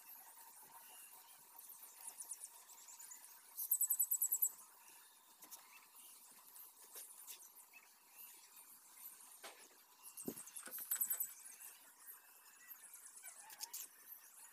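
Rapid high-pitched chirping from a small animal in two brief trills, about four and about eleven seconds in, over faint taps and scrapes of a mason's trowel working mortar.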